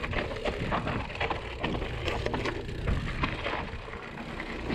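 Mountain bike rolling fast down a rocky dirt trail: tyres crunching over loose stones and dry ground, with frequent irregular clacks and rattles as the wheels hit rocks and the bike jolts.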